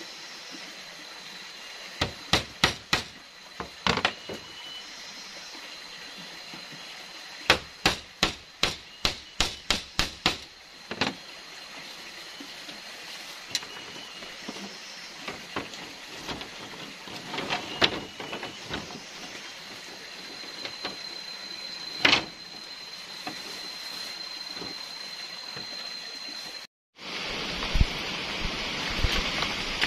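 Sharp knocks of a machete chopping bamboo slats, in irregular runs, with a quick series of about eight blows about a third of the way in. Near the end the chopping stops and a steady rush of wind through leaves takes over.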